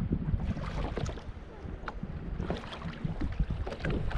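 Wind rumbling on the microphone over water slapping against a kayak hull on a choppy lake, with a few light clicks and knocks.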